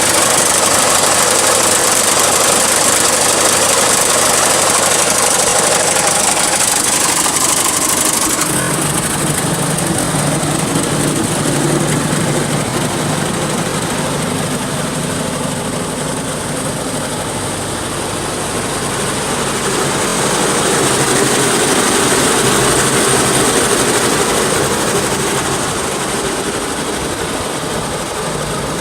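1975 New Holland L35 skid steer running, with the engine and hydraulic pump noise the seller notes for this machine. About a third of the way in the sound changes, turning lower and more humming, and afterwards it rises and falls gently.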